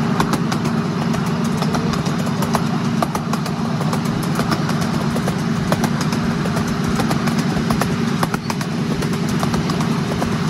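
Small engine of a ride-on miniature railway locomotive running steadily as the train travels, with frequent sharp clicks and rattles from the wheels on the narrow-gauge track.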